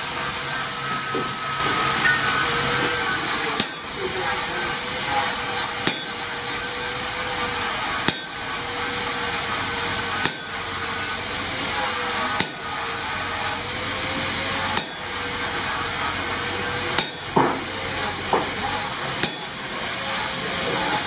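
Hand hammer blows on an axe head being forged at the anvil, about one every two seconds, then a quicker run of strikes near the end, over a steady hiss.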